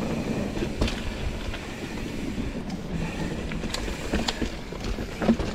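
Mountain bike rolling over rough, wet trail: a steady rumble of tyres and rattling bike parts, with a few sharp knocks.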